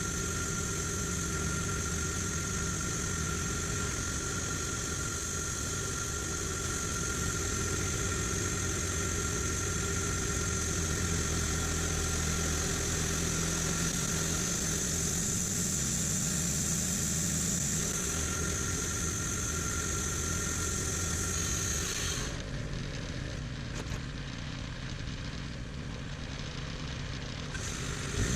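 Portable bandsaw sawmill running: a steady engine with a high, steady whine from the band blade. About 22 seconds in, the high whine drops out abruptly for some five seconds, then comes back.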